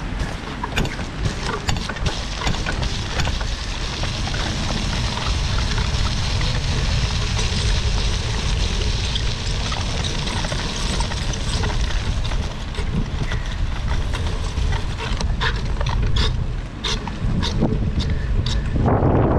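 Wind buffeting the microphone of a handlebar-mounted camera on a bicycle ridden through rain, over a steady hiss of tyres on a wet path, with scattered sharp clicks and a louder rush near the end.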